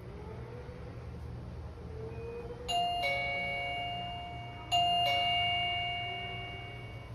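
ZUMIMALL doorbell chime sounding a two-note ding-dong twice, about two seconds apart, each ringing on and fading slowly, over a low steady hum.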